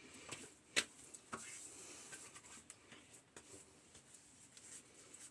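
Faint clicks and taps of small objects being handled, with one sharp click just under a second in.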